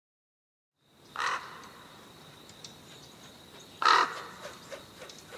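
A bird calls twice, about two and a half seconds apart, the second call louder, over a faint steady high whine.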